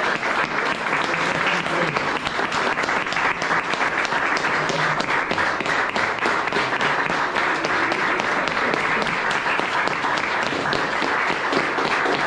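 Audience applauding: a steady, dense patter of many hands clapping, with some voices in the crowd.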